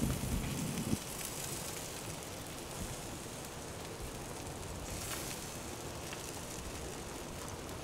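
Steady soft sizzling hiss with faint crackles from hot bacon-wrapped meat fresh off the grill, with a brief low rumble and a knock about a second in as a roll is set down on the wooden board.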